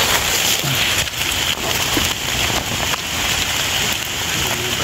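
Steady rain falling on the forest leaves and undergrowth close by.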